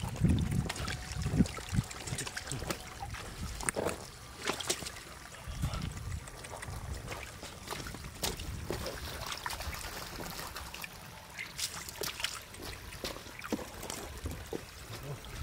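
Shallow muddy stream water trickling steadily, with scattered splashes and sloshes as hands and catfish move in the water. A few low thumps in the first couple of seconds.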